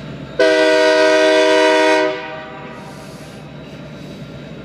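Diesel locomotive air horn sounding one blast of about a second and a half, several notes at once, over the steady running of the passing locomotives' diesel engines.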